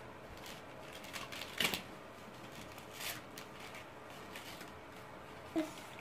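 Clear plastic packaging bag crinkling and rustling as it is pulled open by hand, with a louder crinkle about a second and a half in.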